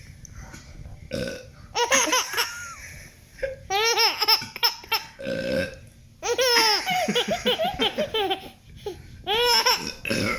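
A baby laughing in repeated high-pitched bursts at a person's burps, with lower burp sounds coming in the gaps between the bursts of laughter.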